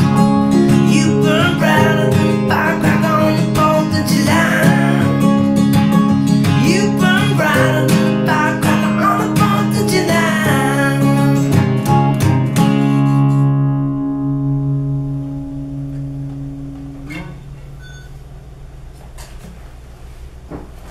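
Acoustic guitar strumming together with an electric piano, ending a song. About thirteen seconds in, the playing stops and the last chord rings and slowly fades, leaving quiet with a faint knock or two near the end.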